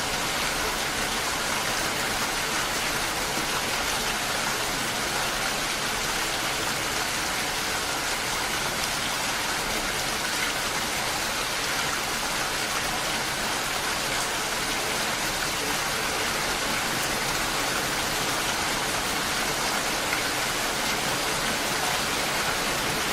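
Steady rain, an even hiss that does not rise or fall.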